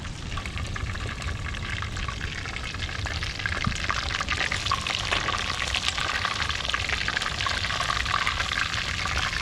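Fish deep-frying in hot oil in a cast iron pot, a steady sizzling crackle that grows louder about three and a half seconds in.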